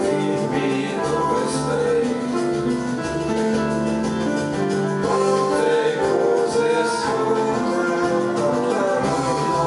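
Instrumental keyboard passage: chords and melody played on two electronic keyboards, a piano sound with long held notes.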